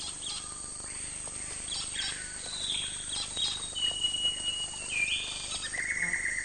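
Rainforest bird whistling: a series of long, clear notes, each held on one pitch and lower than the one before, over scattered chirps and insect clicks.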